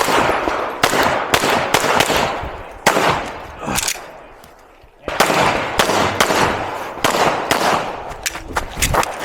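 Glock 34 9mm pistol firing a rapid string of shots during a USPSA stage, about two shots a second, with a short lull about four seconds in before the firing resumes.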